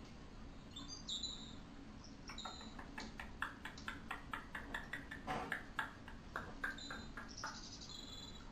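Coloured pencil scratching on paper in a quick, uneven run of short shading strokes, with a few short high chirps about a second in and again near the end, over a low steady hum.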